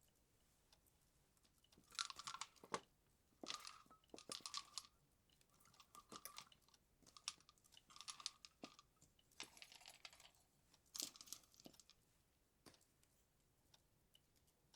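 Christmas tree baubles being handled and hung on the branches: several short bursts of soft rustling and light clicking, a second or so apart.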